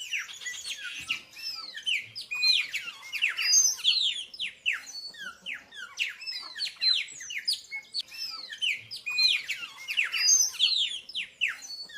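Songbirds chirping and singing: a dense run of quick, high whistled notes sweeping up and down, overlapping throughout.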